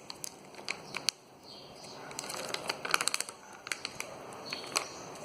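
Sealed plastic slime pouch being handled and pressed with the fingers: irregular clicks and crackles, busiest about three seconds in.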